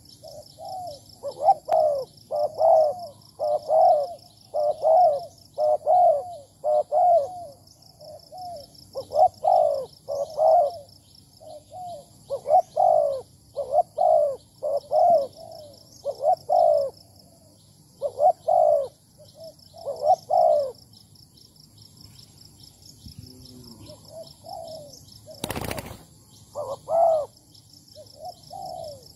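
Spotted doves cooing: a long series of short coo phrases, about one a second, pausing for a few seconds near three-quarters through and then starting again, over a steady high pulsing insect trill. A brief rush of noise cuts in once, shortly after the pause.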